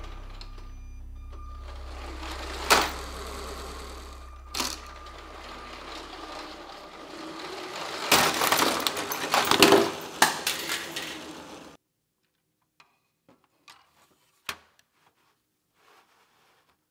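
Motorised Lego train running along plastic track, its small electric motor humming with sharp clicks from the wheels and track. It grows louder and busier a little past the middle, then cuts off about twelve seconds in, leaving a few faint clicks.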